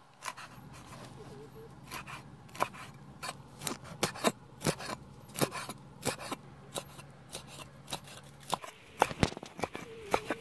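Steel cleaver chopping a long fish into chunks on a thick wooden chopping block: uneven sharp knocks, about two a second, as the blade cuts through the fish and strikes the wood.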